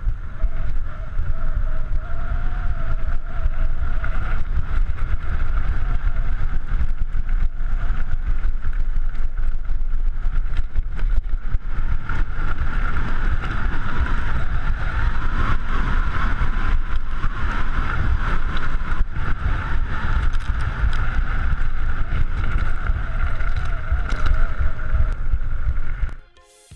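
Mountain bike descending a gravel and dirt trail at speed: heavy wind buffeting on the microphone and the bike rattling over stones and bumps, with a steady high whine throughout. It cuts off abruptly just before the end.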